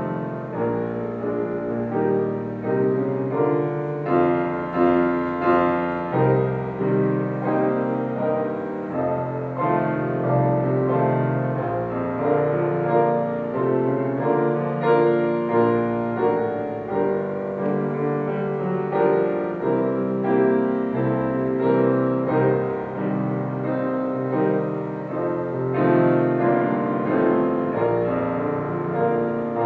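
Solo piano playing a slow, gentle piece, notes struck in a steady flowing rhythm.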